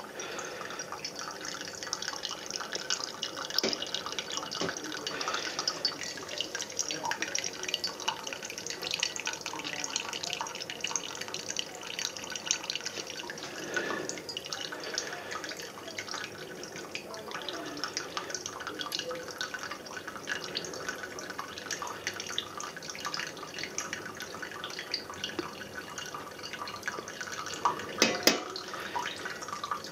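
Thin stream of hot water trickling from a stainless gooseneck drip kettle onto coffee grounds in a flannel filter, with coffee dripping into the mug below. A couple of sharp knocks near the end.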